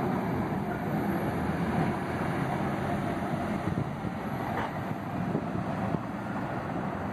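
Scania K280UB city bus with its DC09 five-cylinder diesel engine pulling away up a slope, its steady engine sound slowly fading as it moves off.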